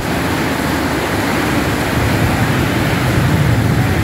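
Heavy rain pouring down: a loud, steady rushing noise that does not let up.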